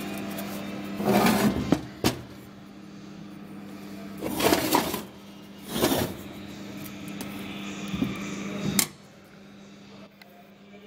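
Handling noises: several short scrapes and knocks, the loudest about a second in, again around four to six seconds in and near nine seconds, over a steady low hum.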